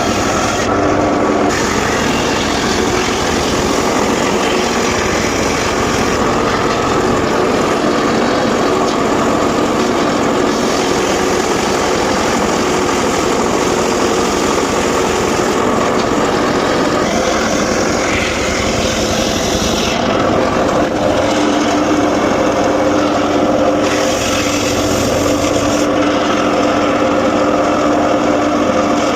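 Engine-driven circular saw running steadily with a constant engine note while sawing mahogany. A higher hiss swells and fades several times as the cut goes on.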